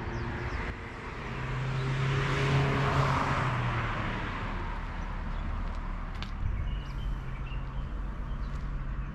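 A car passing on the road: its tyre and engine noise swells to a peak about three seconds in, then fades, leaving a low steady hum of traffic.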